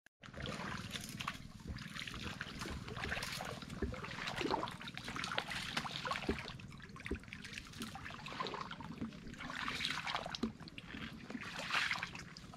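Wading through shallow water: irregular sloshing and splashing of legs moving through the water, with small clicks and a steady low rumble underneath.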